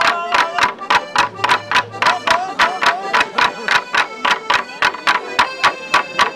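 Traditional folk dance music: a wavering melody instrument over a fast, even drumbeat of about four beats a second.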